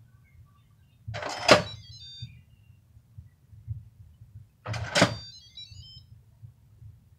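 Electric pressure cooker lid being twisted on the pot, twice: each time a short scraping slide ending in a sharp click with a brief metallic ring.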